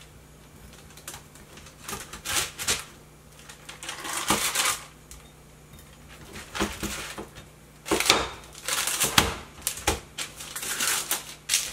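Cleaver cutting a slab of chewy pecan praline candy, the blade clicking and knocking as it goes down in short spells of strokes a second or two apart.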